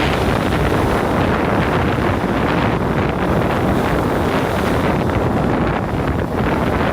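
Wind buffeting the microphone over the wash of sea waves on the shore, a loud, steady rushing rumble.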